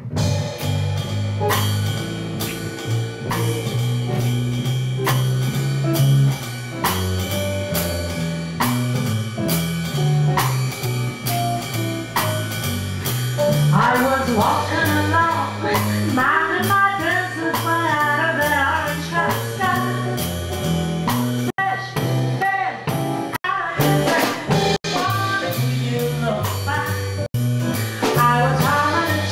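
Small jazz band playing live: drum kit keeping a swing beat under a walking upright double bass line, with guitar and keyboard. A female singer comes in about halfway through. A few abrupt split-second breaks in the sound come later on.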